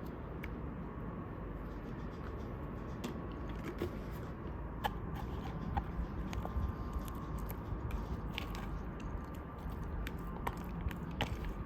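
Someone eating close to the microphone: scattered crisp crunches and clicks of biting and chewing, getting busier a few seconds in, over a steady low background rumble.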